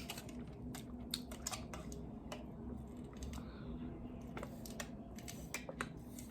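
Close-up mouth sounds of eating and drinking: irregular small clicks and crackles, over a faint steady hum.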